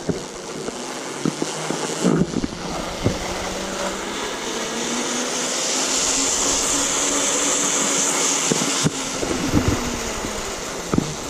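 Zipline trolley pulleys running along a steel cable: a steady whir with a low hum and hiss that build to a peak mid-way and ease off. It is framed by metallic knocks and clacks as the trolley and carabiners hit and settle on the cable.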